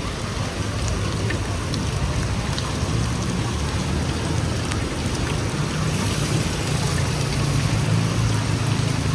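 Heavy rain falling steadily, with a few small drop ticks, under a low traffic rumble that grows stronger from about the middle on.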